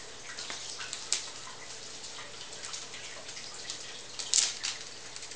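Velcro strips and fabric of a Rogue FlashBender diffusion screen being handled and pressed together: scattered light crackles and rustling, with a louder burst of rustling about four seconds in.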